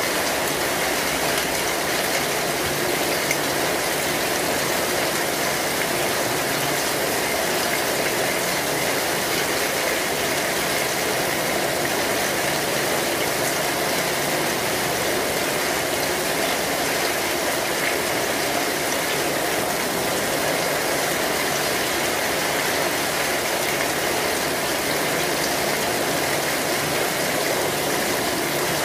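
Kinetic sand being crumbled and squeezed by hand and cut with a metal star-shaped cutter: a steady, dense gritty crackle without a break.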